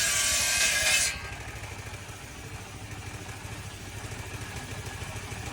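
Sawmill saw cutting through wood, stopping abruptly about a second in as the cut finishes. The mill's engine keeps running steadily with a low, even pulse.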